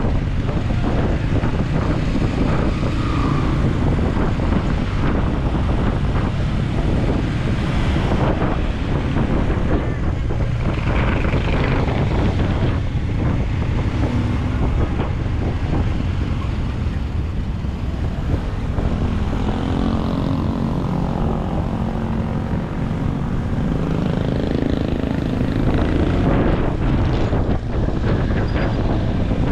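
Wind buffeting the microphone of a camera mounted on a moving Honda ADV160 scooter, with the scooter's engine and the surrounding traffic running underneath. An engine hum comes through more clearly about twenty seconds in.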